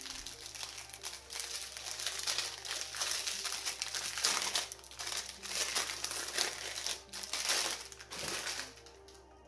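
Crinkly packaging around a pack of seed beads being handled, in a busy run of irregular crackles that stops near the end.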